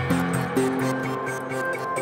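Background music: held synthesizer-like notes over a steady, quick beat.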